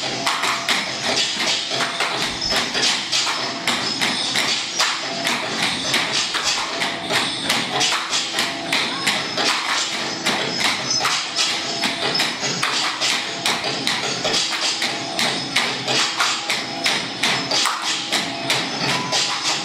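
Bamboo poles clacked together and knocked on a wooden stage floor in a rapid, steady rhythm, with music underneath.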